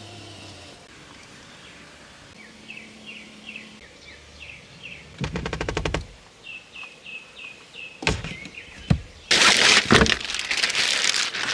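Birds chirping in short, repeated falling notes. About five seconds in comes a quick rattling run of clicks, then a couple of sharp knocks, and near the end a clear plastic bag crinkles loudly.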